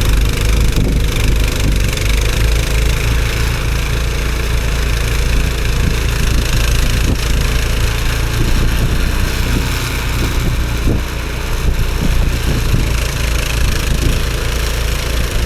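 Gas snowblower engine running steadily.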